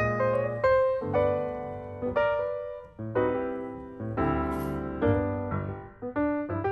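Background piano music: chords and single notes struck about once or twice a second, each fading before the next.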